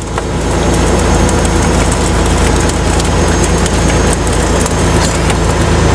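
Fishing boat's diesel engine running steadily, a continuous low drone.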